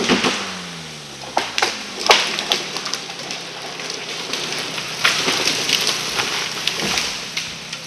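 A continuous crackle and rustle of leaves and branches with scattered sharp snaps. Underneath, a chainsaw engine falls in pitch over the first couple of seconds, then runs at a low steady idle.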